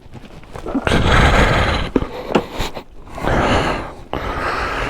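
A man breathing hard, two long heavy breaths: out of breath from walking a few yards up a muddy hill, which he puts down to long COVID.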